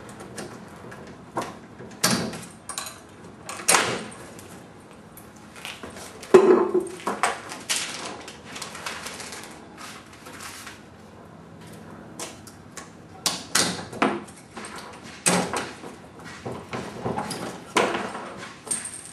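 Detachable wheels being taken off a 12-foot aluminum rowboat: irregular metal knocks, clanks and scrapes, the loudest a clank with a short ring about six seconds in.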